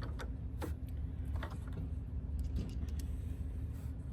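Scattered light clicks and ticks of a T15 Torx driver working the bolts as the latch is screwed back on, over a steady low hum.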